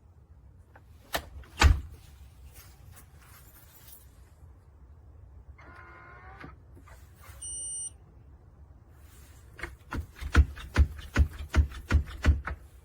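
Sharp knocks at a door fitted with a eufy E330 smart lock: two knocks about a second in, then a quick run of about eight knocks, roughly three a second, near the end. A single short electronic beep sounds about halfway through.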